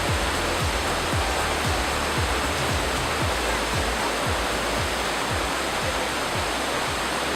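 Steady rush of falling water mixed with background music, its beat a low kick drum about twice a second.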